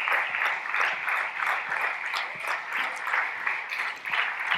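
Theatre audience applauding.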